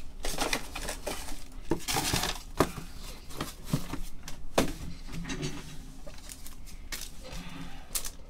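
Irregular sharp clicks, taps and light clinks, with some crinkling, from card packaging and hard objects being handled on a table.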